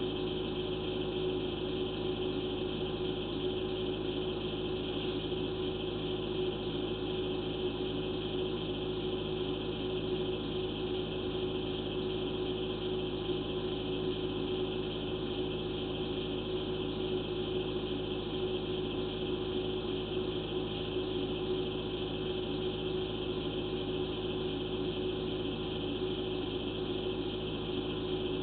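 Steady machine hum with several fixed tones, unchanging throughout.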